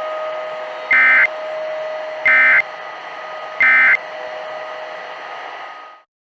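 Three short bursts of EAS SAME data tones, the end-of-message signal that closes a NOAA Weather Radio alert, about 1.3 seconds apart over steady radio static with a faint hum. The static cuts off suddenly near the end.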